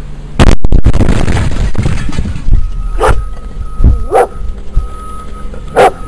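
A sudden, very loud bang about half a second in, with a rumble trailing off over the next two seconds, followed by a dog barking three times.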